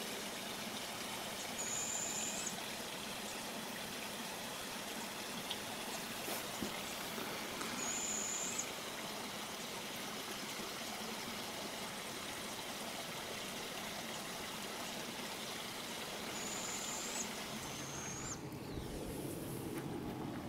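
Steady rush of a running stream, with a thin, high, even call of about a second heard four times, the last two close together.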